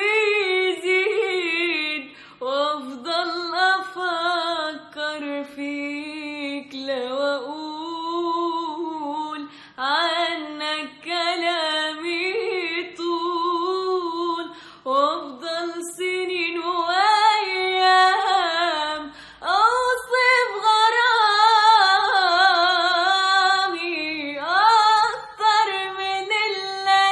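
A woman singing solo without accompaniment: long ornamented phrases with wavering vibrato and upward slides between notes.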